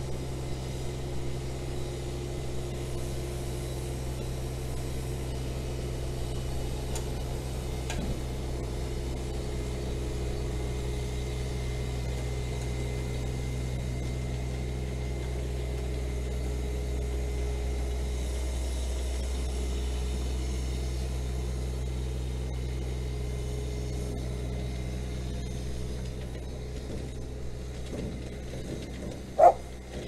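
Engine of a small work machine running steadily at an even speed, a low constant hum, easing off a little near the end. A short sharp knock comes just before the end.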